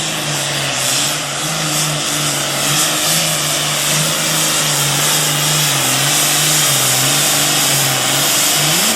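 Super farm pulling tractor's engine running at high RPM under full load during a pull, a loud steady engine note that wavers slightly in pitch over heavy hiss. Near the end the pitch rises briefly, then the engine cuts back.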